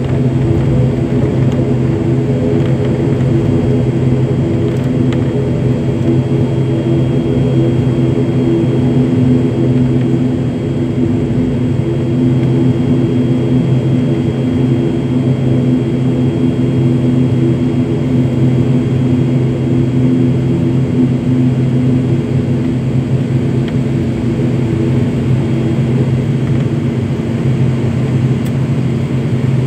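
ATR 72 turboprop engines and propellers heard from inside the cabin: a steady, loud drone with several low hums, holding at constant power with no rise or fall.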